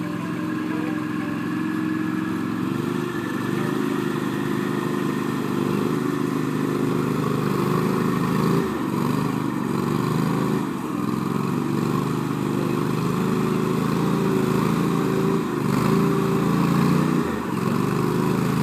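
Engine of an Argo amphibious ATV running under load, its note rising about three seconds in and dipping briefly a few times as the throttle is eased and opened again.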